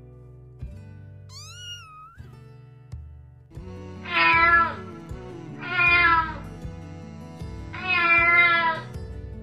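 Kitten meowing three times, each meow about a second long and falling in pitch, over soft background music.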